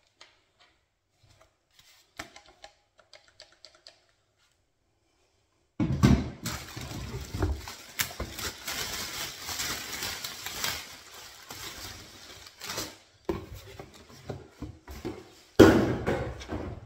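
Faint clicks of plastic parts being fitted together, then from about six seconds in loud crinkling and rustling of a clear plastic bag as a boxed unit is lifted out of it and out of its cardboard box, with a louder rustle near the end.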